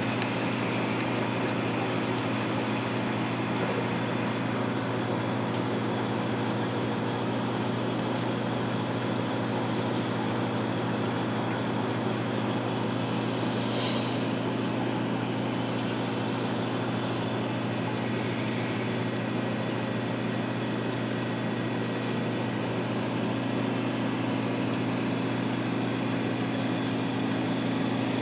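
Steady low hum of reef aquarium pumps, unchanging throughout, with a brief hiss about halfway through.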